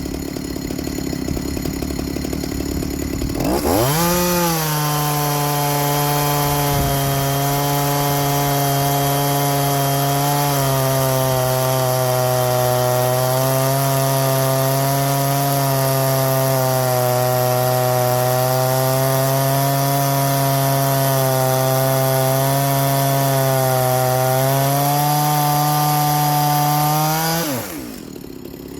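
Two-stroke chainsaw revving up to full throttle about three and a half seconds in and held there through a long cut in wood, its pitch sagging a little under load, then dropping back near the end.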